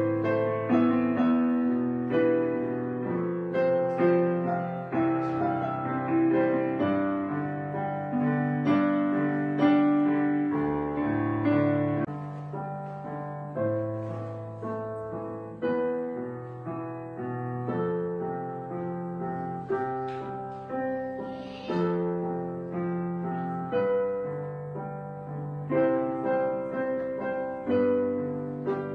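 Background piano music: a gentle piece of notes and chords struck one after another and left to ring.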